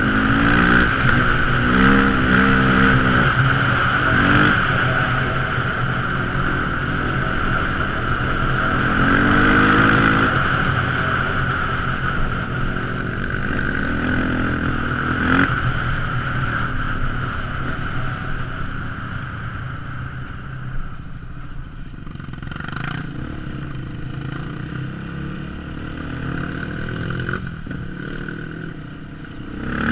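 Quad ATV engine running, revving up and easing off several times in the first half, then running more quietly.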